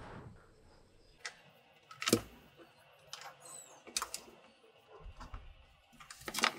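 Sparse wooden clicks and knocks from handling a small wood block against a bent-wood door ring on a wooden floor while marking it with a pen; the loudest knock comes about two seconds in, with a few lighter taps after it.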